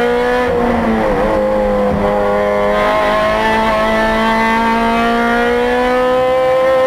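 2008 Honda Civic Si's 2.0-litre four-cylinder engine heard from inside the cabin, running hard under load. Its pitch dips briefly about a second in, then climbs steadily as the car accelerates.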